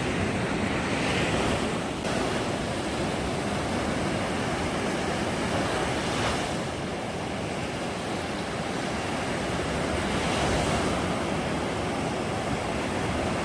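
Sea waves washing onto the beach: a steady rush of surf that swells three times, with wind noise on the microphone.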